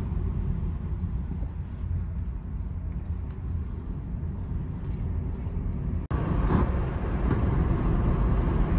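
Road and tyre noise heard inside the cabin of a Nissan Leaf electric car on the move: a steady low rumble, with no engine sound. About six seconds in it drops out for an instant and comes back a little louder.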